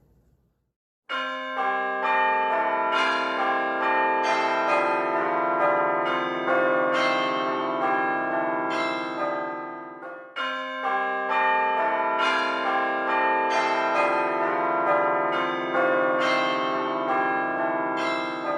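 Bells ringing a fast run of overlapping struck notes in two long phrases, starting about a second in, with a brief break about ten seconds in.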